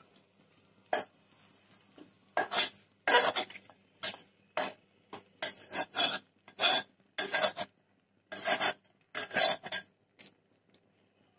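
A metal spoon scraping cooked chicken out of a steel bowl into a pot of rice: about a dozen short scrapes, irregularly spaced, roughly one or two a second.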